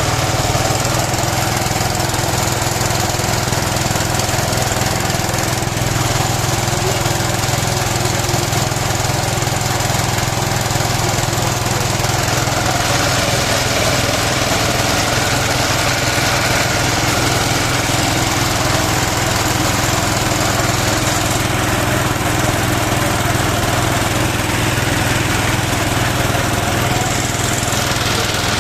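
Small water-pump engine running steadily under load, driving a homemade well-drilling rig through a Suzuki Carry gearbox.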